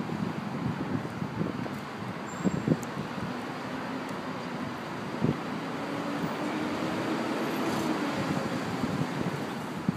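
City street traffic heard from high up, a steady wash of road noise, with one engine's hum standing out through the middle seconds. Wind gusts knock on the microphone now and then.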